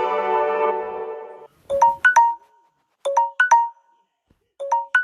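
Samsung Galaxy S8 ringtones: a melodic ringtone fades out over the first second and a half, then the next ringtone starts, a short figure of three quick chime notes repeated about every second and a half.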